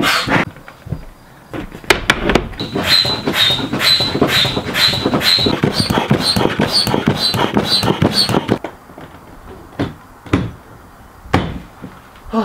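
Foot-operated bellows pump inflating an inflatable boat through its hose: an even rhythm of air strokes, about two a second, each with a short high squeak. The pumping stops about two-thirds of the way through, and a few single thumps follow.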